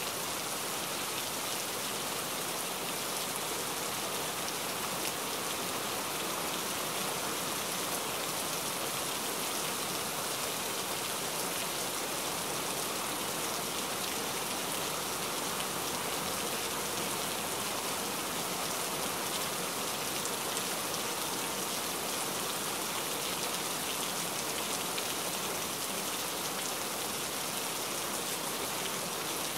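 Heavy rain falling steadily, a dense even hiss of drops hitting surfaces with fine crackling patter and no let-up.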